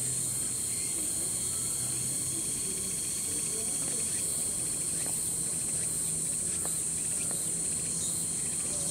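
Autumn cicadas singing in a steady, high-pitched drone that does not let up.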